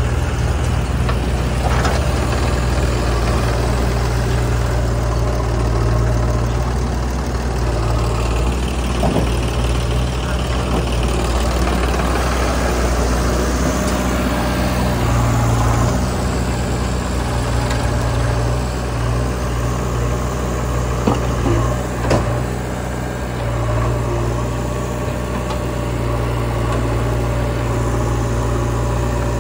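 Diesel engines of a JCB 3DX backhoe loader and a Sonalika tractor running steadily at low revs, with a couple of sharp clanks about two-thirds of the way through.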